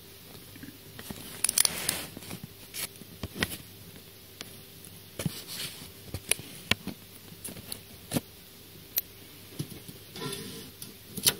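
Hands handling a shrink-wrapped metal trading-card tin: irregular light clicks and crinkles of plastic wrap and metal, scattered about a second apart. A faint steady electrical buzz runs underneath.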